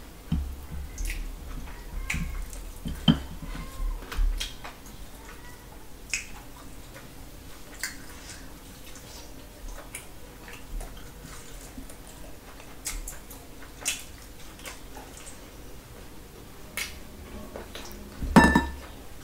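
Close-up eating sounds from hand-eating off stainless steel plates: fingers picking and mixing rice and gravy, scattered small clicks and clinks against the plates, with mouth sounds of eating. One louder, ringing clink near the end.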